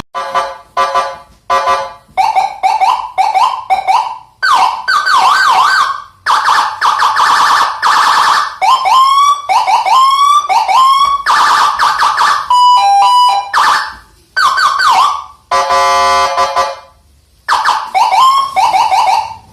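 Aftermarket vehicle siren, a Landun PJR86 unit driving a TOA 15-watt horn speaker, cycling through its tones. It starts with short chirping blips, then moves into wailing and fast yelping sweeps and a rapid two-tone hi-lo, with brief gaps between the patterns.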